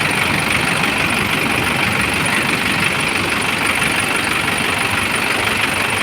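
Fishing boat's engine running steadily at a low, even speed.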